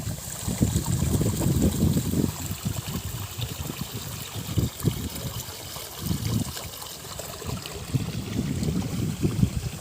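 Wind gusting and buffeting the microphone in uneven rumbles, over a steady trickle of running water.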